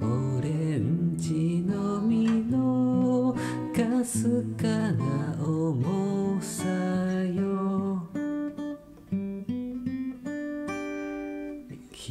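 Acoustic guitar strummed in a song accompaniment, thinning to softer, sparser picked notes about two-thirds of the way through.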